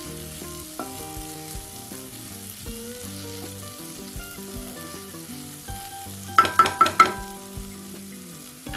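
Bell pepper stir-fry sizzling in a nonstick kadai as a spatula stirs it. About six seconds in come four quick, loud, ringing metallic knocks, the spatula tapped against the pan.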